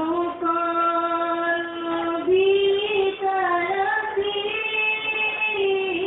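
Young female voice singing a sholawat, an Islamic devotional song, as one melodic line with long held notes and ornamented glides in pitch.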